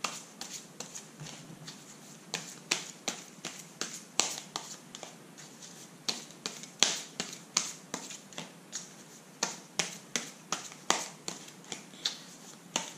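A tarot deck being shuffled by hand: a run of sharp, irregular card slaps and clicks, about two or three a second.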